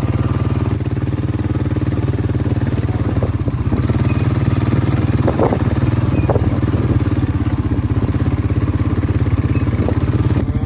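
A motor vehicle's engine running steadily and close by, with an even, rapid firing pulse. A few short higher-pitched sounds come over it about halfway through.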